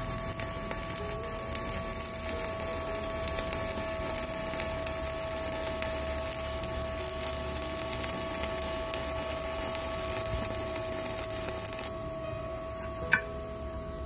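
Stick-welding arc of a WeWeld ARC 220 inverter welder burning a 4 mm E6013 rod at 120 amps: a steady crackling sizzle over a constant whine, stopping about twelve seconds in, followed by a single click. At 120 amps the rod burns but the arc is weak, low current for so thick a rod.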